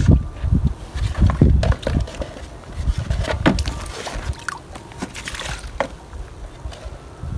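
Water sloshing and splashing, with scattered knocks and rustles, as newly transplanted seedlings are given their first watering.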